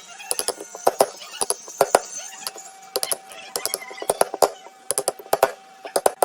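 Irregular sharp knocks of tools striking wood, several a second, like chopping or chiselling. A faint steady tone joins about two seconds in.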